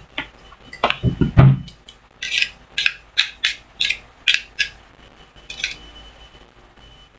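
Metal wire beaters of an electric hand mixer being removed and knocked to shake off whipped cream: a low thump about a second in, then a quick run of sharp metallic taps that thins out near the end.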